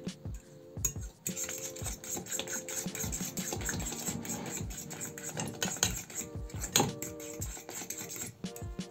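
A metal fork stirring a thick banana, egg and oat-flake batter in a glass bowl, clinking and scraping against the glass in quick, irregular strokes.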